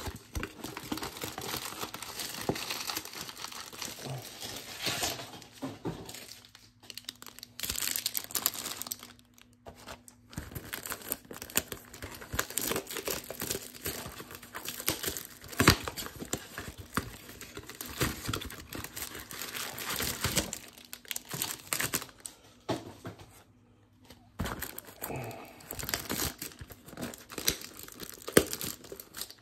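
Plastic wrapping on trading-card blaster boxes and packs crinkling and tearing as it is cut and pulled open. The crackling comes in irregular bursts, with a few short pauses.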